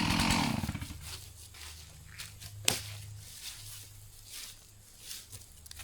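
Chainsaw throttle released: the engine drops from cutting speed to a low idle within the first second, then idles quietly under footsteps in leaves and a single sharp crack a little under three seconds in.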